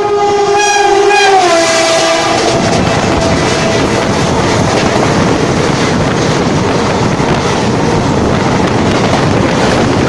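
Indian Railways locomotive horn blowing as a train passes, its pitch dropping about a second and a half in as it goes by and fading out within a few seconds. After that comes the loud, steady rumble and clatter of train wheels on the rails.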